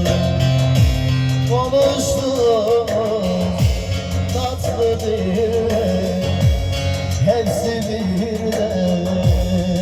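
Music from a live Turkish song performance: a wavering, ornamented melody line over steady accompaniment with a recurring low bass pulse.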